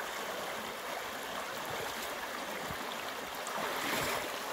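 Shallow river rapid rushing steadily over stones, with the swish and splash of legs in waders wading through the current.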